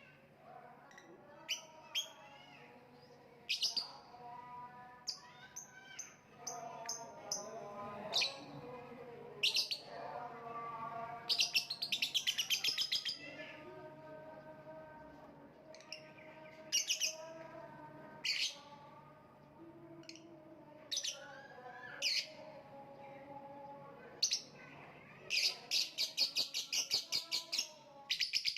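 Lovebird chirping and chattering: sharp, high single chirps scattered through, with two fast runs of rapid chatter, one near the middle and one near the end, over a lower warbling that goes on throughout.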